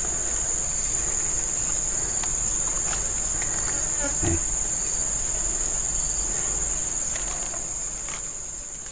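A steady, high-pitched chorus of insects shrilling, with a few faint knocks from a keep net being handled; the sound fades down near the end.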